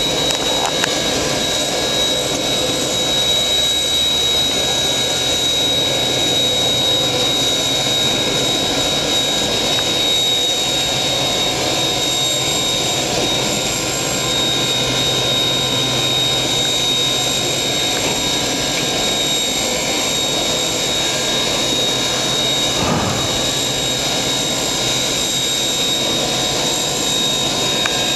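Steady hissing roar of a steam locomotive standing in steam as the turntable slowly rotates it, with a constant high whine.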